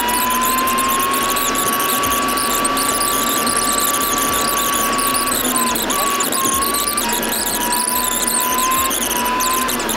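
Inside a Volvo truck's cab while driving: a high whine from the truck's drivetrain holds almost steady, then dips and climbs again a few times in the second half, over constant engine and road noise.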